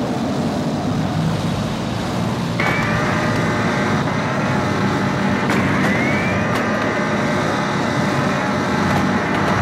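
Sci-fi hovertank engine sound effect: a steady low rumble. About two and a half seconds in, a high whine joins it, rising in pitch and then holding. The whine rises again a few seconds later.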